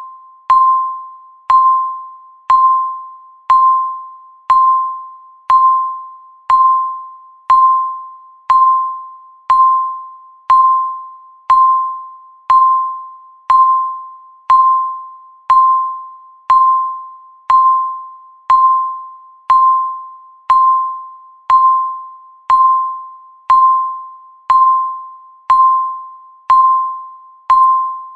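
Countdown timer beep marking each second: a single clear pitched tone, once a second, each starting sharply and dying away before the next.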